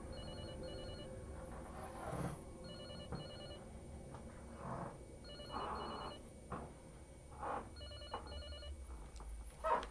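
Telephone ringing faintly in a double-ring pattern, four rings about two and a half seconds apart, with a few soft knocks between them.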